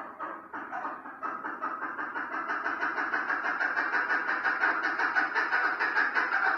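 Chukar partridge calling: a fast run of repeated chuck notes, about four a second, growing louder.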